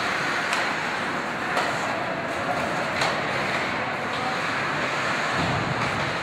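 Live ice hockey play in an indoor rink: a steady wash of skates on the ice and arena noise, with a few sharp clacks about half a second, a second and a half, and three seconds in.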